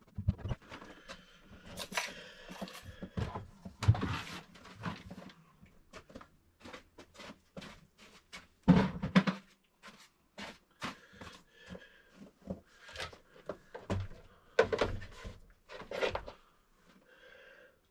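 Irregular knocks, clunks and rattles of things being handled and set down inside a stripped-out van cab, with one heavier thump about nine seconds in.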